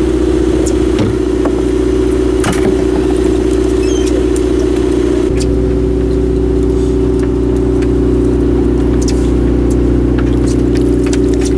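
A boat's engine running with a steady drone. Its tone shifts slightly about five seconds in, and a few light clicks sound over it.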